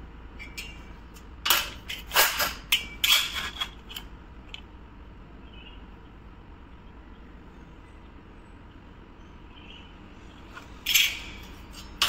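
A few short metallic clatters about two to four seconds in, and another near the end, as a slotted galvanized steel cable tray and a steel try square are handled during marking out.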